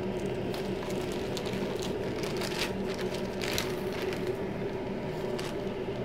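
Plastic parts bags crinkling and rustling as gloved hands sort through a box of small switches, with scattered sharp crackles, over a steady low hum.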